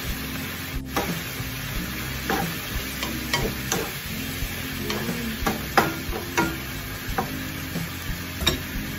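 Squid adobo sizzling in a pan while a wooden spatula stirs it, with irregular knocks and scrapes of the spatula against the pan; the sauce is being cooked down until the liquid is gone.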